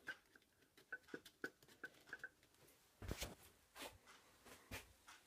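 Near silence, with faint small ticks and a few soft knocks from handling.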